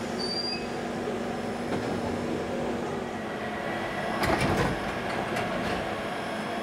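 London Underground Bakerloo line electric train, a 1972 Stock unit, giving a steady hum with a held low tone. About four seconds in comes a short, louder clatter of knocks.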